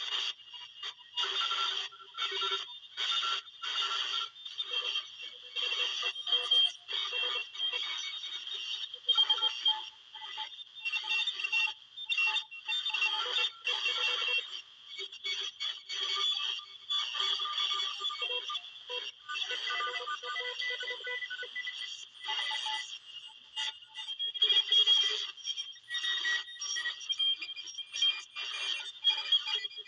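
Shortwave radio receiver tuned to around 14 MHz, giving out irregular, choppy bursts of warbling electronic tones and noise, with steady high-pitched tones running underneath.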